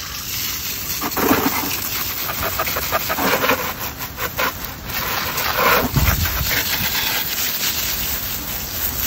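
Garden hose spray splashing against a dirt bike's bodywork and rear wheel and spattering onto wet grass, an uneven splashing hiss.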